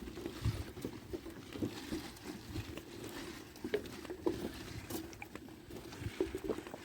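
Footsteps along a walking trail, roughly two soft steps a second, over a light constant rustle.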